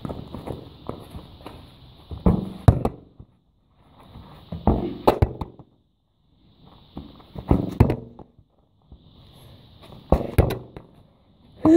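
Dull thuds of a football being kicked and bounced, mixed with footsteps, coming in short bursts every two to three seconds.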